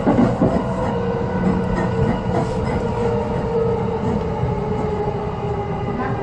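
JR East suburban electric multiple unit running at speed, heard from inside the car: a steady rumble of wheels on rail under a drawn-out motor hum that drifts slightly in pitch, with a knock or two from a rail joint right at the start.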